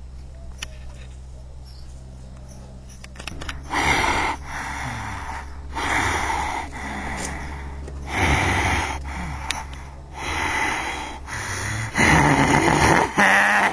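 A person breathing heavily close to the microphone: five loud breaths about two seconds apart, starting a few seconds in, the last one longest. A steady low hum runs underneath.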